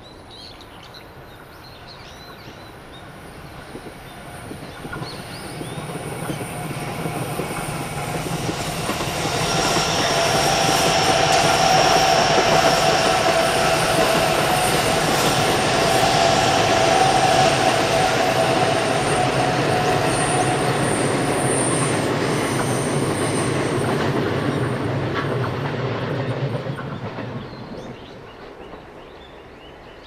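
Electric passenger train passing: it approaches, runs by with wheels rolling on the rails and a steady high whine, then fades away.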